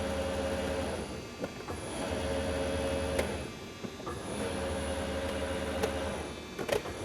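Gildemeister NEF 320 CNC lathe's drives running with a steady whine in bursts of about two seconds. The whine stops and starts again roughly every two and a half seconds, with a click in each short pause.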